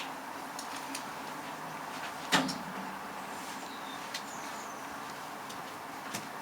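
Steady low background hiss with a few soft clicks and one sharp knock about two seconds in.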